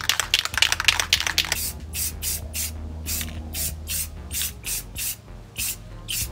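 Rust-Oleum satin clear enamel aerosol can, first rattling rapidly as it is shaken, then sprayed in a dozen or so short hissing bursts, two to three a second, to seal a freshly painted rust layer with clear coat.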